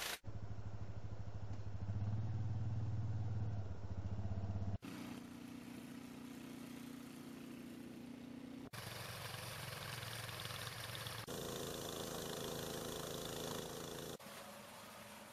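ATV engine running under load with a front-mounted RAMMY 120 snowblower clearing snow. The engine note jumps abruptly in pitch and level four or five times.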